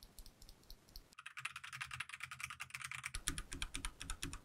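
Typing on an Akko mechanical keyboard fitted with CS Jelly Black linear switches: a few scattered keystrokes, then fast continuous typing from about a second in.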